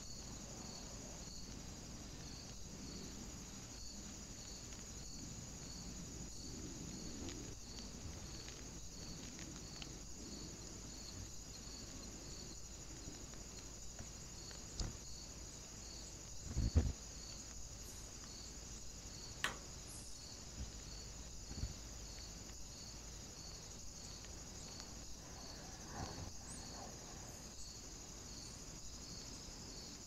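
Outdoor woodland ambience picked up by a trail camera: a steady, high-pitched, insect-like drone with a faint regular pulse about twice a second. A few soft knocks and taps come in the second half, the loudest a dull thud about two-thirds of the way through.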